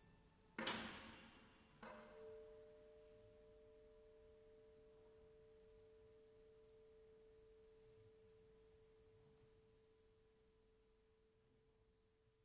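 Closing sounds of a contemporary chamber-ensemble piece: a sharp, bright struck attack, a second softer one about a second later, then a single clear note that rings on and dies away slowly over about ten seconds.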